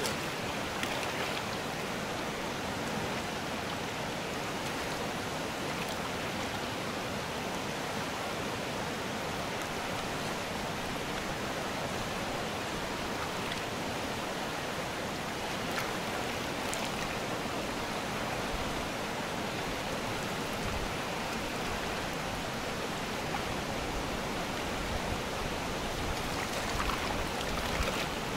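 Steady rushing of a fast mountain river running over rapids and stones.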